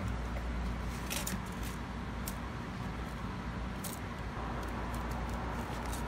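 Light handling sounds of a cable and tape measure, a few soft clicks and rustles, over a steady low hum.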